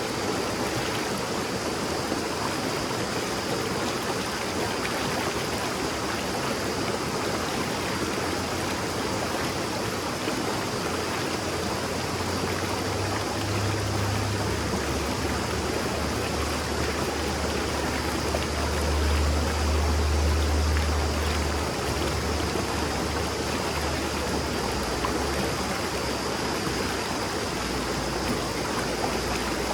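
Shallow mountain stream babbling steadily over rocks. A low rumble swells for several seconds in the middle.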